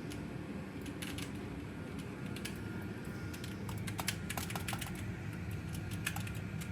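Computer keyboard being typed on, irregular scattered key clicks over a steady low hum.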